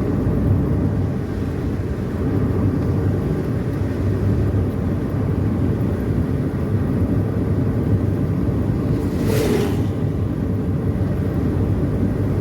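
Car on the move: steady engine and tyre rumble, heard from inside the car. A brief rushing hiss swells and fades about nine and a half seconds in.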